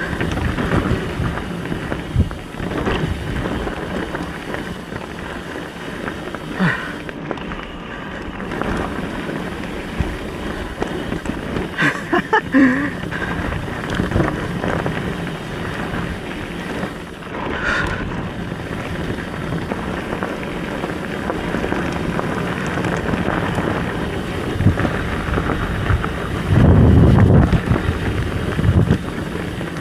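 Wind buffeting the microphone of a rider-mounted camera as a mountain bike descends a rough trail, with steady tyre and riding noise and scattered short knocks and rattles from the bike over bumps. A heavier low rush of wind comes near the end.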